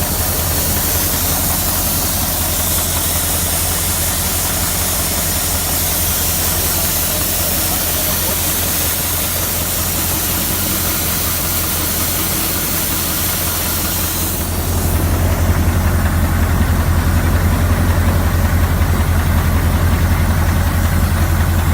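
16.4-litre Mack EE9 V8 diesel in a Renault Magnum truck idling steadily with a deep, even hum. A high hiss sits over it until about two-thirds of the way in, when the hiss fades and the low rumble becomes louder.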